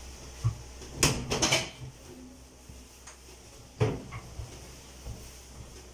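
Kitchen cabinet doors knocking and clacking as they are wiped down by hand with a cloth. There is a single knock about half a second in, a quick run of clatters around a second in, and another knock near four seconds.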